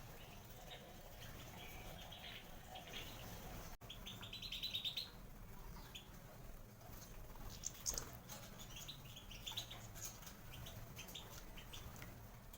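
European goldfinch chirping and twittering in short calls, with a quick rapid run of notes about four seconds in.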